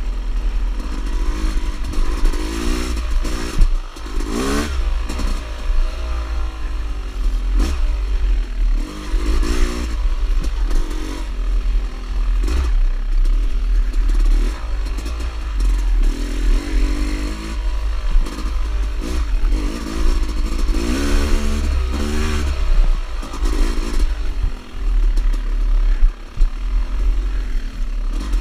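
Dirt bike engine revving up and down over and over as it is ridden along a bumpy trail, with occasional knocks and rattles from the bike hitting bumps.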